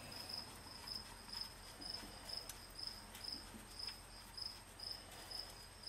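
An insect chirping steadily: a high-pitched chirp repeated about twice a second, with a few faint clicks of hand handling.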